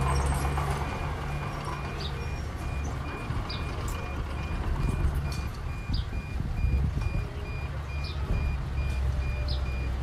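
Diesel engine of heavy earthmoving equipment running with a steady low rumble, over an even high-pitched beep repeating about three times a second.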